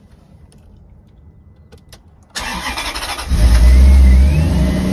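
Maserati GranTurismo V8 starting: quiet for about two seconds, then about a second of starter cranking before the engine catches, revs up briefly and settles to a steady idle. The engine has just been pre-oiled from an oil accumulator, and it starts without any variator rattle.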